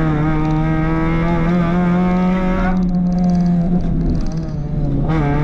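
Rally car's engine heard from inside the cabin, held at high revs on a stage run at a nearly steady pitch. About three seconds in it eases off briefly and quietens, then pulls hard again near the end.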